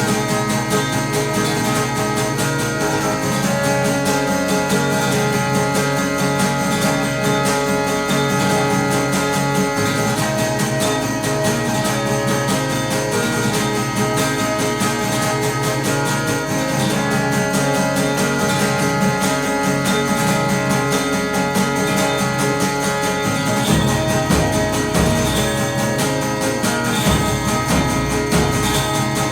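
Recorded song playing an instrumental passage led by guitars, with no singing; deeper bass notes come in near the end.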